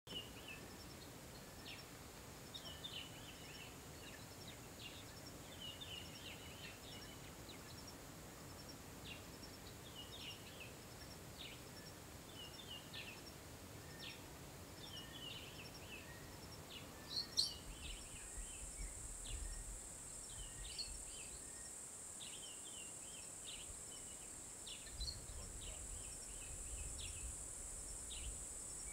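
African bush ambience: many small birds chirping and twittering throughout. A sharp click comes about two-thirds of the way in, and a steady high insect drone joins from then on, over a faint low rumble.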